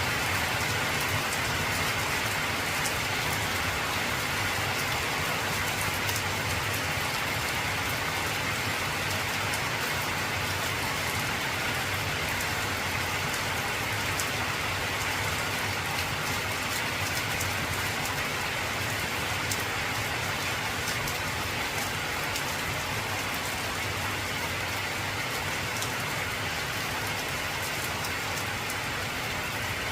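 Heavy rain drumming steadily on an old zinc (corrugated metal) roof, a dense patter of drops.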